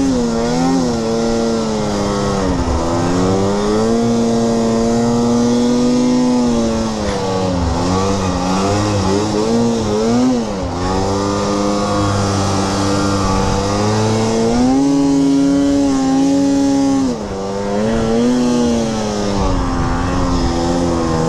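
Snowmobile engine running under the rider, its pitch rising and falling again and again with the throttle.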